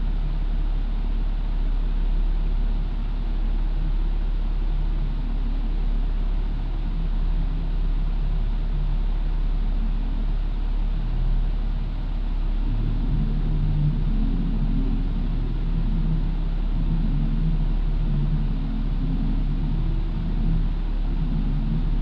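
Toyota 4Runner engine idling through a Flowmaster Super 40 exhaust: a steady, low exhaust rumble.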